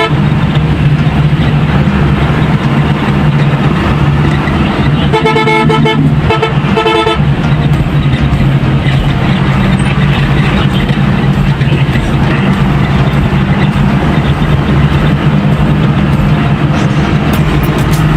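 Bus horn sounding two multi-tone blasts, about five seconds in and again a second later, over the bus's steady engine drone and tyre noise on a rain-wet road.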